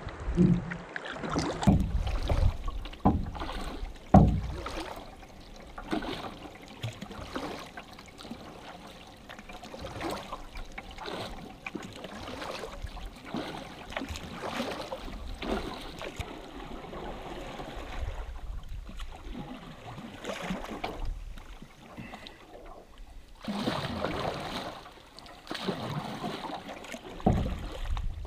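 A canoe being paddled: water splashing and lapping at the hull, with uneven swishes from the paddle strokes, loudest in the first few seconds.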